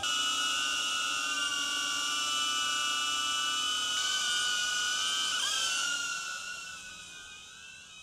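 DJI Avata 1 FPV drone hovering, its propellers giving a steady, really high-pitched squeal of several tones at once. The pitch wobbles briefly about five and a half seconds in, then the sound fades out over the last two seconds.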